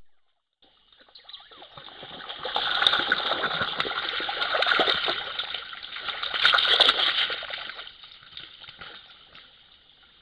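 A mammal wading through a shallow forest stream, splashing and sloshing in the water. The splashing comes in uneven swells, loudest around a third of the way in and again about two-thirds in, over a steady high hiss.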